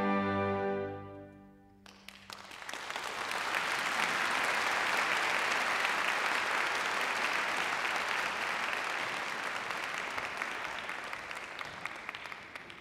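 The accompaniment's final held chord dies away in the first two seconds, then an audience applauds steadily, the applause fading near the end.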